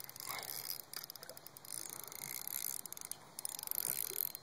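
Fishing reel being cranked with light, rapid clicking as a hooked largemouth bass is reeled in.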